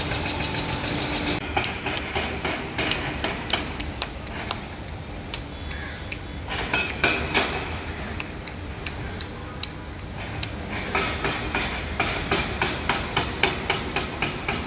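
Irregular sharp knocks and clanks, a few a second, from demolition work on broken concrete and metal, over a steady background rumble. A low steady hum stops about a second and a half in, and the knocks grow denser near the end.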